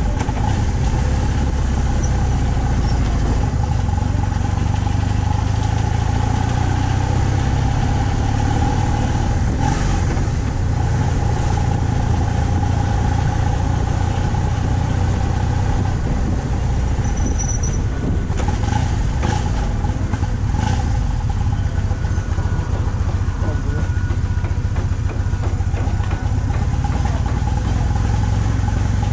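BMW R 1200 C motorcycle's 1170 cc boxer-twin engine running steadily under way, mixed with heavy wind rumble on the mounted action camera.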